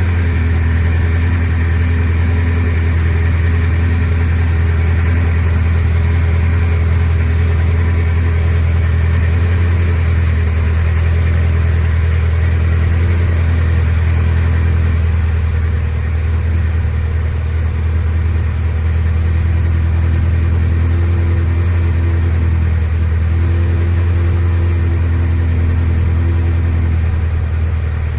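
Ferrari 360 Spider's V8 engine idling steadily, with a deep, even hum throughout.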